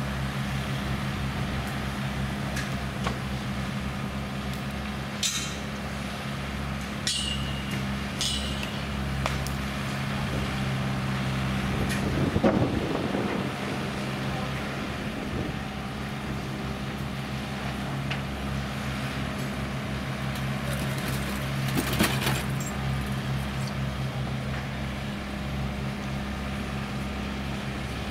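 Diesel engines of a small excavator and a rail-going dump truck running steadily at a distance. Scattered sharp metallic clinks and a heavy thump about halfway through come from loading removed railway sleepers.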